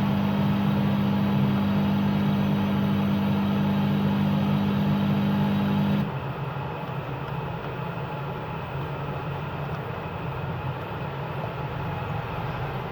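A steady low motor hum that stops suddenly about six seconds in, leaving a quieter, rougher background noise.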